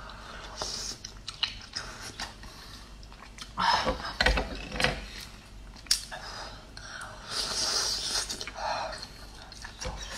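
Mouth sounds of eating a large oyster: wet slurping and chewing, with scattered sharp clicks and louder bursts about four seconds in and again from about seven seconds in.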